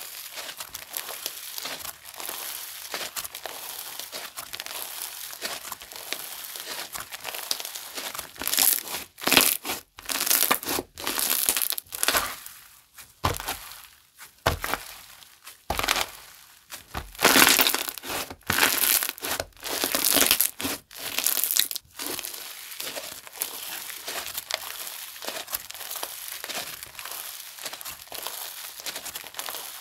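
Micro snow slime being squished and pressed by hand, giving a steady fine crackling with two spells of louder crunchy squishing in the middle.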